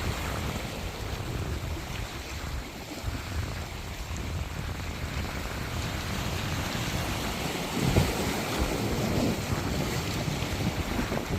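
Sea waves washing onto a beach in a steady rushing wash, with one wave breaking louder about eight seconds in.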